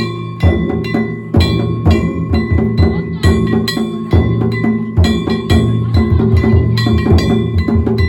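Danjiri festival percussion (narimono): quick, steady beats on a big drum with small metal gongs ringing over them.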